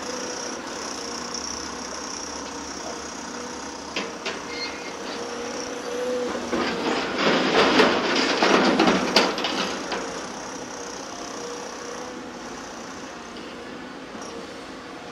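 Caterpillar 336F LN excavator running steadily, with a loud rattling clatter of many knocks lasting a few seconds from about six seconds in.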